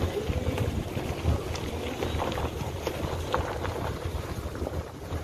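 Wind buffeting the microphone over a steady low rumble, recorded from a moving vehicle.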